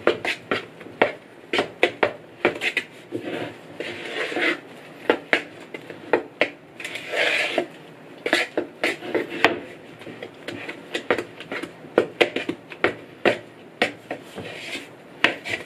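Wooden spoon stirring whipped topping in a wooden bowl: irregular knocks of the spoon against the side of the bowl, about one or two a second, with scraping between them.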